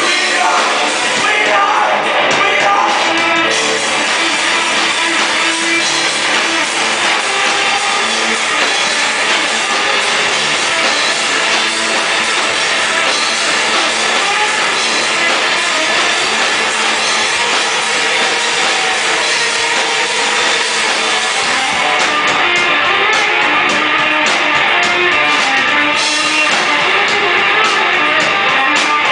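Live rock band playing loudly and steadily, with electric guitar and singing.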